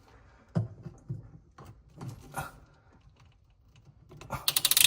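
Metal basin wrench clicking and knocking against a faucet's mounting nut under a sink: a few separate clicks, then a quick run of rapid clicks near the end as the wrench is worked on the nut.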